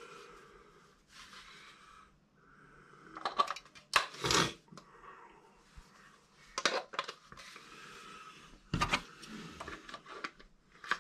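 Small plastic clicks, knocks and rattles of AAA batteries being handled and loaded into a hobby RC radio transmitter, a few seconds apart, the loudest about four seconds in.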